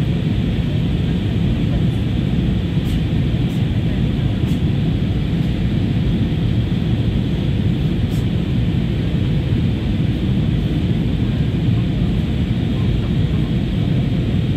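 Steady airliner cabin noise during descent: jet engines and rushing airflow heard from inside the passenger cabin. The sound is an even, unchanging noise, mostly low in pitch.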